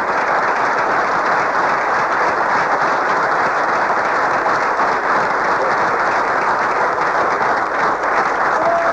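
Sustained applause from a large indoor audience, a dense, steady clapping.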